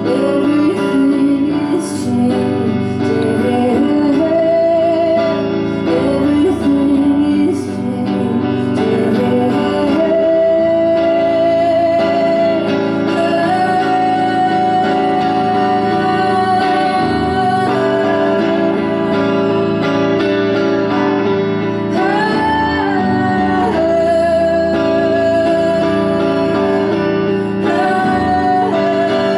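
Live solo performance: a woman singing long, held notes over her own guitar accompaniment.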